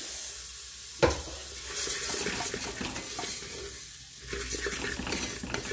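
Uncooked rice sizzling in hot oil in an aluminium pressure cooker as it is poured in and stirred with a wooden spoon, the spoon scraping the rice around the pot. A single sharp knock about a second in.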